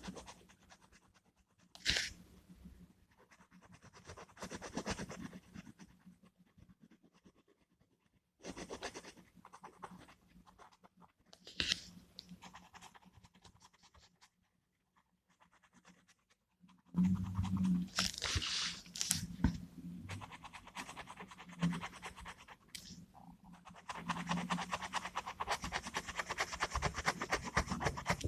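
Gel pen scratching on paper in quick back-and-forth colouring strokes, in spells of a few seconds with pauses between.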